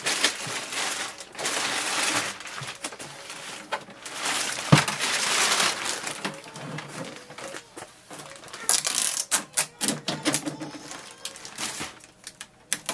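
Packing tape being peeled off the plastic casing of a new HP OfficeJet Pro 9015 inkjet printer, with stretches of tearing hiss. There is one sharp knock a little before the middle, then a quick run of plastic clicks and snaps over the last few seconds.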